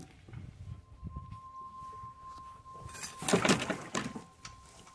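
Choppy lake water slapping and splashing against the legs and frame of a wooden pier, loudest in a splash about three seconds in. A faint steady tone runs under it from about a second in.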